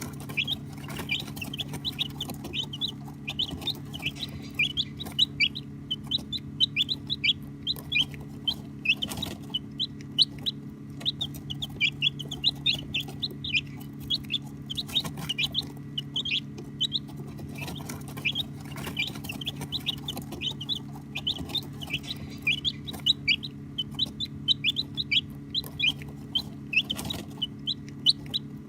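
Baby chicks peeping nonstop: many short, high chirps that fall in pitch, several a second, over a steady low hum.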